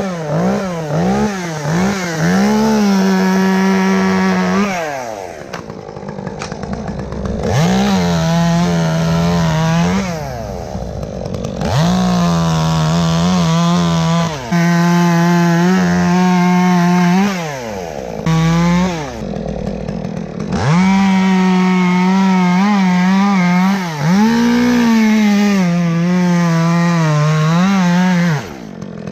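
Two-stroke chainsaw revving and cutting wood in a series of held full-throttle runs of a few seconds each, dropping back and blipping the throttle between cuts.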